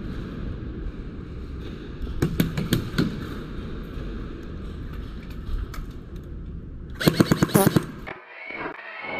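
Airsoft gunfire in a large warehouse over a steady low rumble: a few sharp cracks about two to three seconds in, then a fast burst lasting about a second about seven seconds in. An edited-in sound effect follows near the end.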